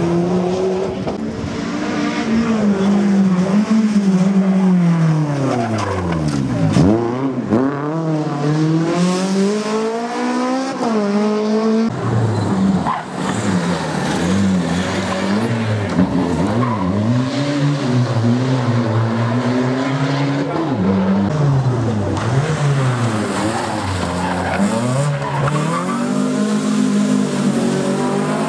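Škoda rally car's engine revving hard, its pitch repeatedly climbing and falling through gear changes and braking, with a deep drop and sharp climb about seven seconds in. There is a sudden break about twelve seconds in, after which the revving carries on.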